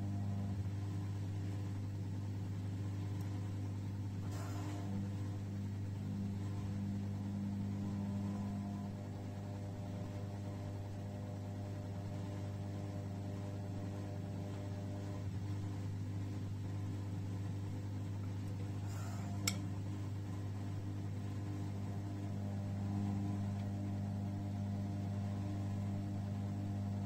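1994 Bompani BO27027 washer-dryer in its wash phase, the drum turning with water and laundry: a steady low motor hum. A faint knock comes a few seconds in, and a single sharp click comes about two thirds of the way through.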